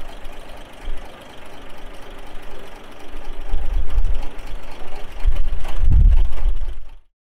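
Early Cummins diesel engine running at idle, with heavy low buffeting on the microphone in the second half; the sound cuts off just before the end.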